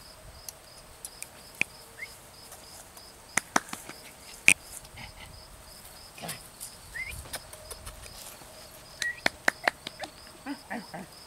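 Cricket chirping in a steady, even pulse, about two or three chirps a second. A few sharp clicks and short rising high chirps are scattered over it, the loudest click about halfway.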